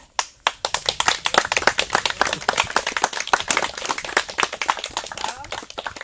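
A small crowd applauding with many overlapping hand claps. The clapping starts about half a second in and dies away near the end.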